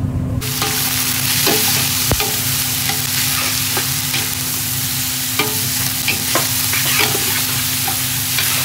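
Sliced onions sizzling as they fry in a stainless steel pot, starting about half a second in, while a metal slotted spoon stirs them with scattered clinks and scrapes against the pot. A steady low hum runs underneath.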